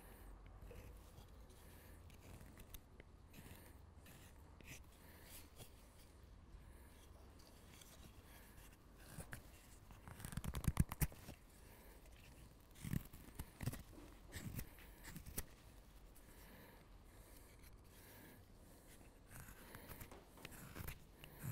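Carving knife slicing thin shavings from an alder spoon blank in short, crisp strokes. The cuts come in bursts, louder about halfway through and again near the end.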